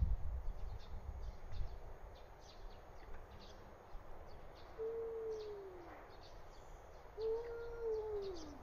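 Cat yowling in a standoff: two long, low, wavering calls, each held and then sliding down in pitch. The first comes about five seconds in and the second near the end.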